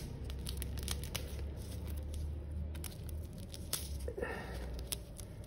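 Light rustling and small scattered clicks of gloved fingers handling a taped stack of lead battery plates and paper separators, with a brief louder rustle about four seconds in, over a low steady hum.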